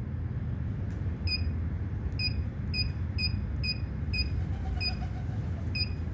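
Wilson Baiardo stringing machine's touchscreen giving a short electronic beep for each key press, about nine beeps at an uneven pace as its menus are stepped through. A steady low hum runs underneath.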